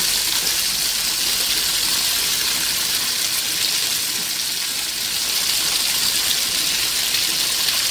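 Chicken pieces frying in a shallow pan, a steady sizzle.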